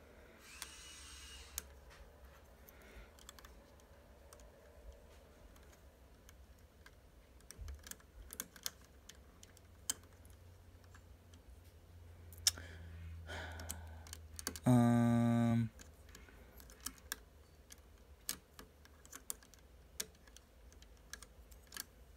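Small clear plastic crystal puzzle pieces clicking and tapping against each other as they are handled and pressed into place, in irregular scattered clicks. About two-thirds of the way in there is a single steady hum lasting about a second, the loudest sound in the stretch.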